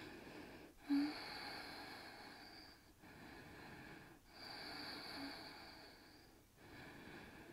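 A person breathing slowly and audibly, a steady rhythm of long, soft in- and out-breaths of one to two seconds each during a held yoga posture.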